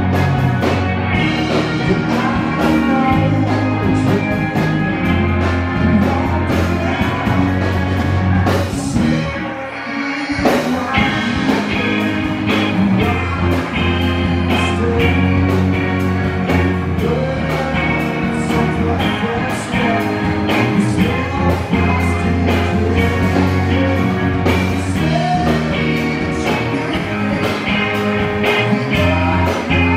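Live rock band playing amplified electric guitars, bass and drums, with a vocalist singing. About a third of the way in the bass and drums briefly drop out, then the full band comes back in on a hit.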